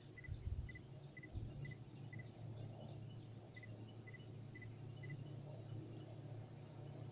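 Insects calling in a steady high-pitched whine, with a short pip repeated about twice a second that pauses midway and then stops. A few brief high chirps come near the middle, over a steady low hum, with a couple of low bumps in the first second and a half.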